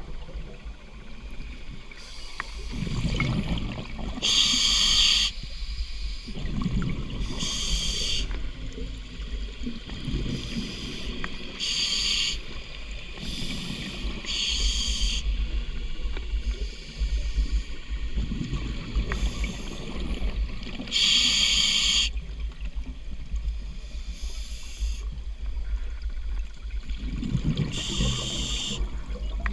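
Scuba diver breathing through a regulator underwater: a burst of exhaled bubbles every few seconds, with low rumbling water noise on the microphone in between.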